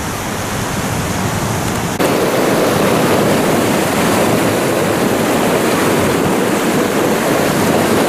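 Sea waves breaking and foaming over a rocky shore in wind: a steady rushing that jumps louder about two seconds in.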